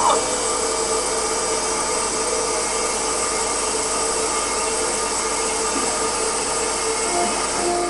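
MEP Shark 332 NC evo automatic bandsaw running steadily during its automatic cutting cycle, with a constant mechanical noise and a few steady hums through it.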